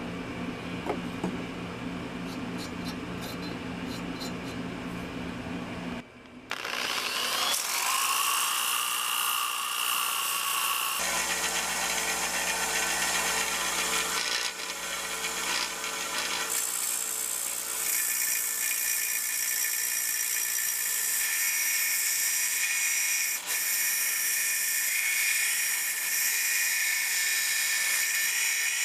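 A steady low hum for about six seconds, then a small vertical belt sander starts with a rising whine and runs steadily, grinding rust off a forged steel drawknife blade held against the belt.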